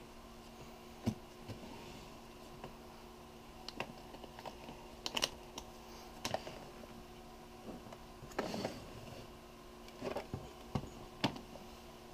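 Scattered clicks and light knocks as the lid of a hard-shell camera case is closed and the case is handled, over a faint steady hum.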